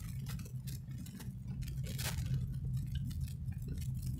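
Inside a moving car: a low steady drone of engine and tyres, with light irregular clicks and rattles over it.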